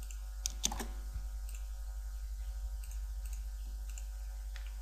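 Computer mouse clicking: a handful of separate sharp clicks, roughly a second apart, over a steady low electrical hum.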